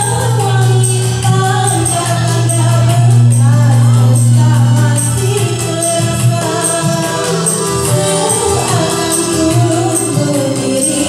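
A woman singing into a microphone through a PA over a karaoke backing track with a steady beat of light percussion ticks.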